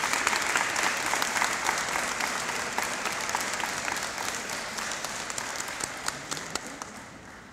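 A crowd applauding, many hands clapping together, the applause dying away gradually toward the end.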